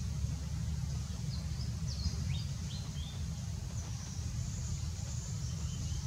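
A few short, high bird chirps, some falling quickly in pitch, about one to three seconds in, over a steady low rumble.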